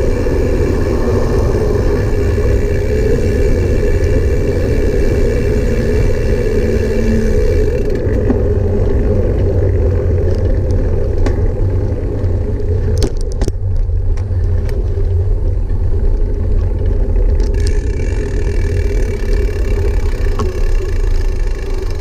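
Motor of a small vehicle carrying the camera, running steadily with a heavy low rumble and a thin whine above it. The whine drops away about 8 seconds in and comes back near 18 seconds.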